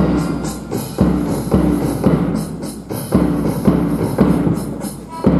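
March music for a parade, driven by a steady drum beat of about two strokes a second.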